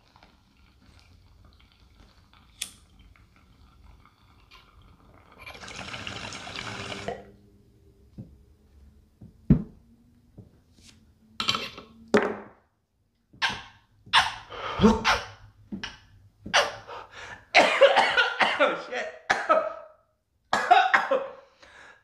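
A glass water bong drawn briefly about six seconds in, then a man coughing in repeated fits from a harsh bong hit.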